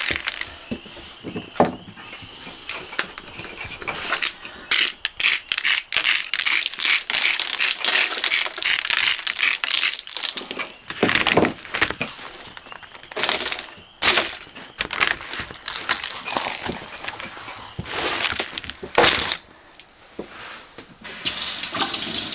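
Pink butcher paper crinkling and rustling as raw steaks are handled and seasoning is pressed into them by hand, in irregular crackly bursts.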